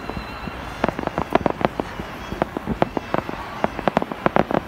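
Fireworks going off: a rapid, irregular string of sharp cracks and pops, with a brief lull about half a second in.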